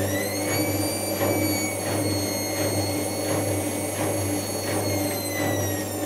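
Indesit IWC6165 washing machine spinning its drum: the motor's whine climbs in pitch over the first half second, then holds steady and sags slightly near the end. Under it run a constant low hum and a soft swish repeating a little over twice a second.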